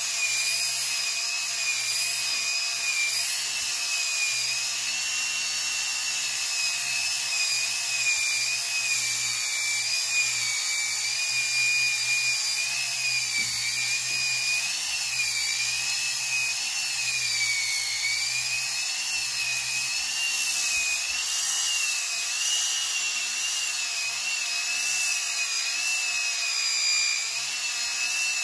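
Handheld rotary sander with a hook-and-loop disc sanding jujube wood: a steady high whine whose pitch wavers up and down throughout.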